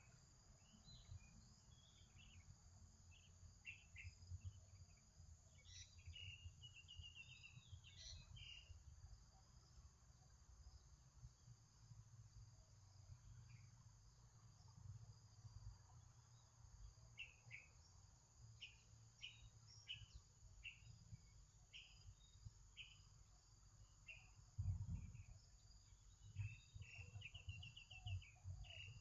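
Faint background of birds chirping, with short calls and a couple of quick trills, over a steady high insect drone and low room rumble. One dull thump comes about 25 seconds in.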